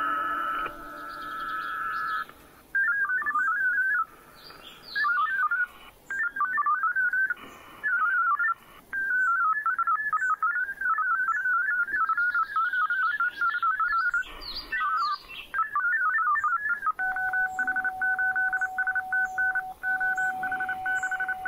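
HF digital data modem tones from an Icom IC-705 transceiver during a Winlink session over VARA HF: a warbling, chirping data signal that comes in short bursts at first, then runs almost unbroken. Near the end it gives way to two steady tones that pulse on and off. Faint high chirps, like birds, sound in the background.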